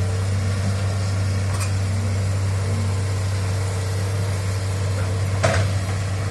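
Heavy-machinery diesel engine running steadily with a low drone, with two short knocks, one about one and a half seconds in and a louder one near the end.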